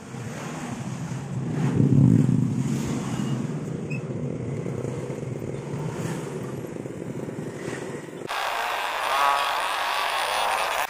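Small motorcycles and scooters riding past on a road, the loudest one passing close about two seconds in. Near the end the sound changes abruptly to a brighter, higher-pitched mix of traffic.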